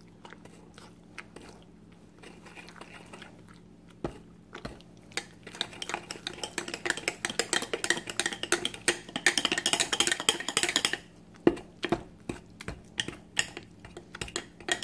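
Wire potato masher working canned sweet potatoes in a ceramic casserole dish: rapid wet squelches with clinks of metal against the dish. Faint for the first few seconds apart from a single knock, then steady, busy mashing from about a third of the way in, with a short pause about three-quarters through before it picks up again.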